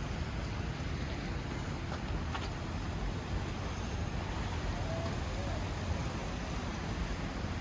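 Steady wash of rain and city street noise with a constant low rumble and no distinct events.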